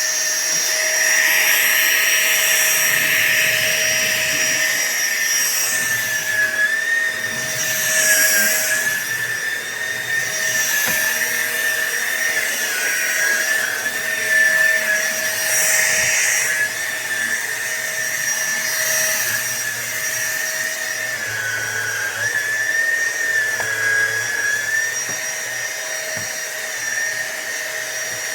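SunSare cordless stick vacuum cleaner running: a steady high-pitched motor whine that wavers slightly in pitch, with a rush of air that swells and fades every few seconds.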